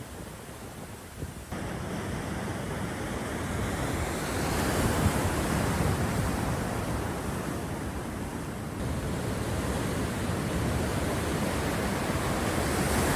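Storm wind and surf: a steady rushing noise with wind buffeting the microphone. It jumps louder abruptly about a second and a half in and changes character again near nine seconds.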